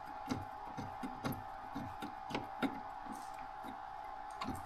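Scattered light knocks and clicks of hands handling spindle cable wires and connector parts, over a faint steady hum.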